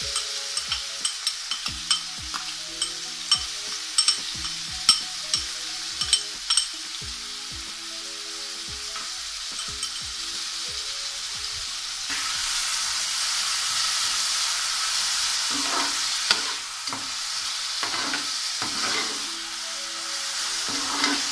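Chopped onions frying in hot oil in a metal pan: a steady sizzle, with sharp clicks for the first six seconds or so. The sizzle grows louder about twelve seconds in, and a spoon scrapes and stirs the onions against the pan near the end.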